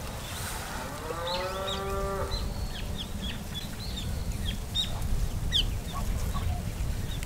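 Wind rumbling on the microphone while small birds chirp many times in short high notes. About a second in, one drawn-out call rises and then holds for just over a second.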